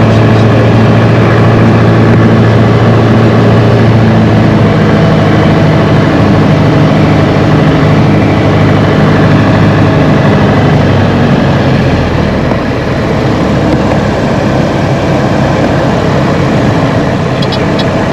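A Piper PA-28's single piston engine and propeller, heard from inside the cockpit, run with a steady low drone on the landing approach. About twelve seconds in the drone weakens and drops as the engine settles to idle on the runway rollout.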